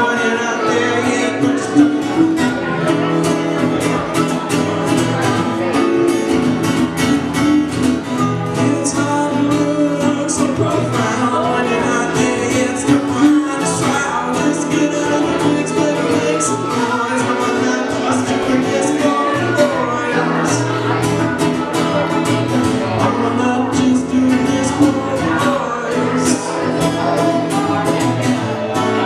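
Live acoustic folk music: an acoustic guitar strummed, an upright double bass plucked and a harmonica played, with a man singing.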